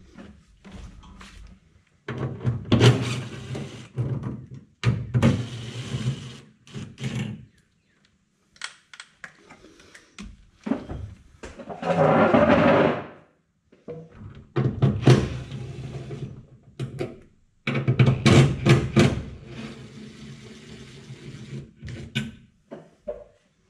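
Cordless drill running in several short bursts of a second or two, working the fasteners on a pickup's front grille, with clicks and knocks between the bursts.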